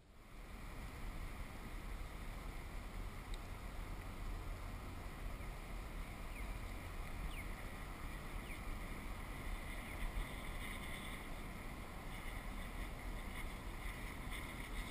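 Steady wind and water noise around a fishing kayak, with wind rushing over the microphone.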